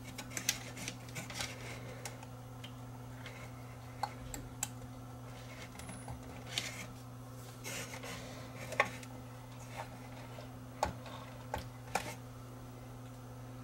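Irregular small metallic clicks and taps of hand tools working on a stereo receiver's circuit board as old resistors are desoldered and pulled out, over a steady low electrical hum.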